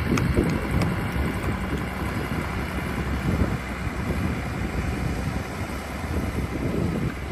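Wind buffeting the microphone with a steady low rumble, over a large farm tractor's engine running.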